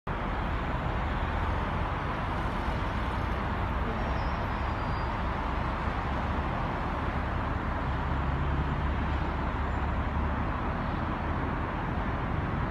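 Road traffic on a multi-lane road: a steady wash of tyre and engine noise from passing cars and a bus, with a low rumble underneath.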